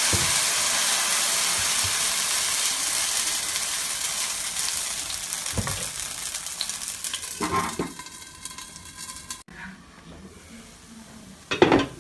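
Fresh green-maize roti batter sizzling on a hot pan. The sizzle is loud at first and dies down over several seconds. A few short knocks of a utensil against the pan come later, the last near the end.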